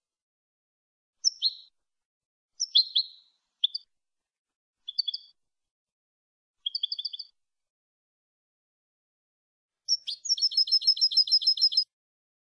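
European goldfinch singing a clean contest-style song (canto limpio): short twittering phrases in separate bursts, then a fast trill of about nine notes a second lasting nearly two seconds near the end.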